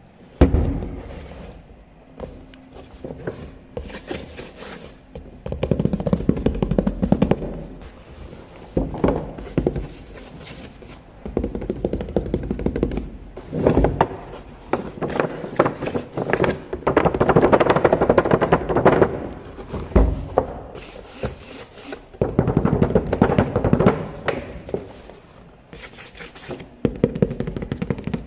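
Unboxing handling noise: irregular bursts of scraping, rustling and rubbing of packaging, with sharp clicks and several thumps.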